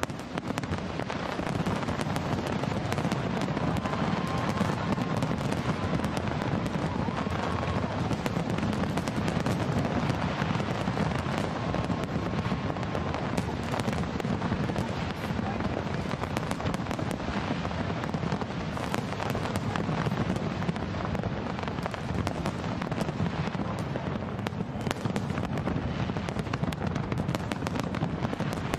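Large aerial fireworks display: a dense, unbroken barrage of overlapping booms and crackles from many shells bursting at once. A faint whistling tone sounds a few times in the first half.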